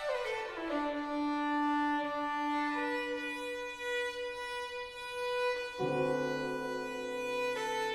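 Violin playing slow, long-held notes, opening with a downward slide in pitch; lower accompanying notes come in about six seconds in.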